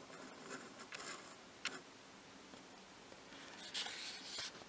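Fingers rubbing and brushing against the paper page of a comic trade paperback: a few short, soft rubs and a light tick, then a longer rub near the end.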